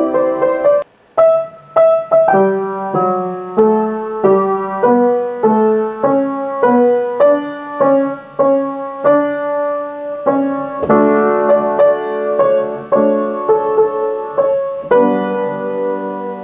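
Piano playing a slow melody over a stepping bass line, a note or chord about every half second. There is a brief pause about a second in, and a final chord near the end that fades.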